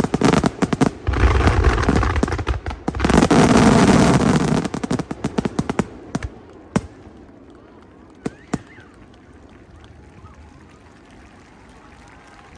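Aerial fireworks exploding in a dense run of crackling bursts and booms for about six seconds. They then die away to a few last single pops over faint background voices.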